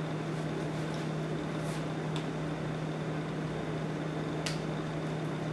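Steady mechanical hum with a faint high whine, as from a running kitchen appliance or fan. A few light clicks, the clearest about four and a half seconds in.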